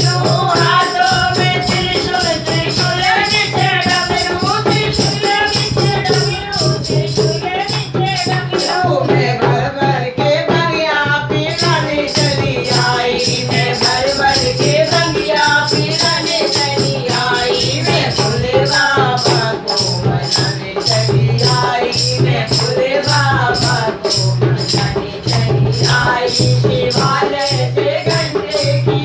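Hindi devotional Shiva bhajan sung to a steady percussion rhythm, with a rattling, jingling beat under the melody.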